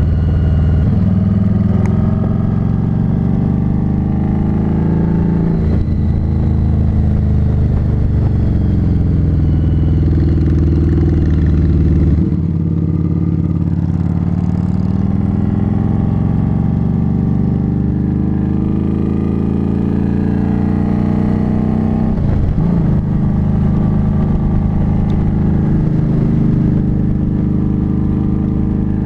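Harley-Davidson Street 500's liquid-cooled V-twin engine running under way. The engine note rises and falls with throttle, breaks off briefly twice, and drops about twelve seconds in before climbing again.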